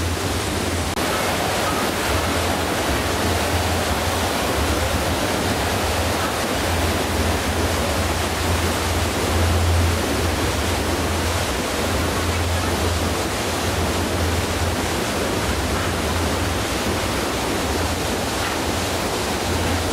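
Rushing water, a steady loud hiss with an unsteady low rumble beneath it.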